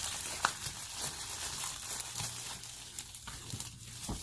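Plastic packaging crinkling and tearing in irregular crackles and small snaps as a board game is unwrapped.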